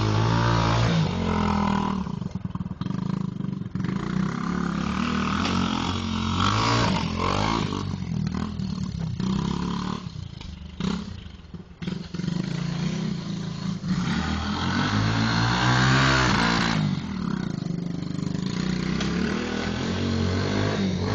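Small dirt bike's engine revving up and down repeatedly as it is ridden, the pitch rising and falling with the throttle. The sound drops away for a couple of seconds about ten seconds in, then climbs again.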